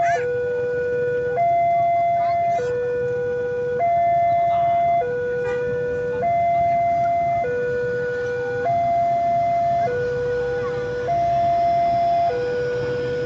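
Indonesian railway level-crossing warning alarm sounding its electronic two-tone signal, a low and a high tone alternating about every 1.2 seconds, warning that a train is crossing. Under it a CC 203 diesel locomotive hums as it shunts coaches past.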